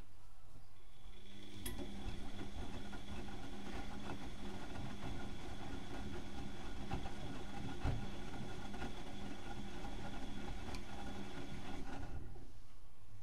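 Bauknecht WAK 6950 washing machine running its drum motor in the wash phase: a steady whining hum with irregular knocks starts about a second in and stops about twelve seconds in.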